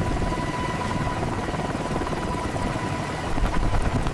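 A steady, loud, fluttering low rumble with a thin steady whine over it, like a heavy engine or rotor running.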